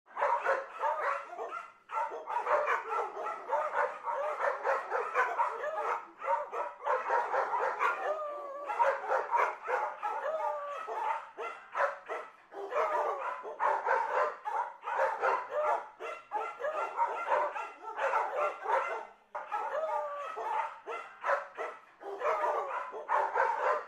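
Dogs barking and yipping in quick, crowded calls with short breaks, starting suddenly.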